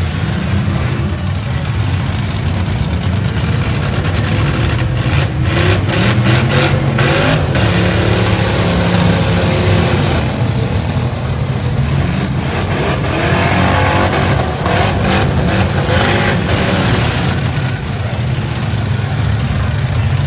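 Several V8 demolition-derby cars' engines revving and running hard together. Clusters of sharp crashes come about five seconds in and again past the middle, as cars collide.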